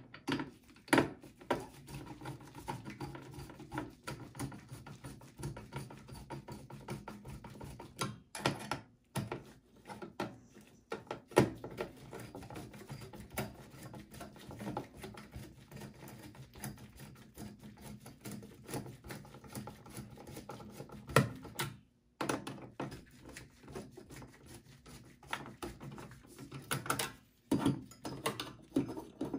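Phillips screwdriver working the screws of a desktop PC's CPU heatsink cooler: a run of light clicks and scrapes of the tool on the screws, with a few louder knocks scattered through.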